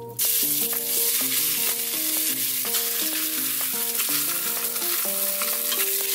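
Raw chicken pieces dropped into hot oil in an Instant Pot's stainless steel inner pot on sauté, bursting into sizzling about a quarter second in and frying steadily from then on.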